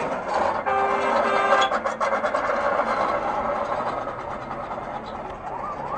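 Street noise with a blaring horn-like tone for about a second early on and a rough scraping noise. Near the end a rising, whooping alarm tone begins.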